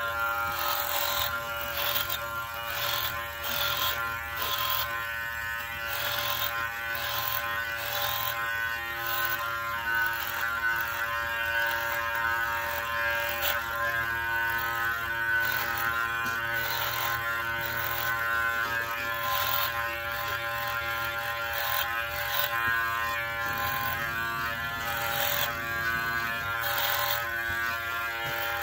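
Cordless X Master hair clipper buzzing steadily as it shaves a head down to the scalp, with a rasp of cutting hair rising on each pass every second or two.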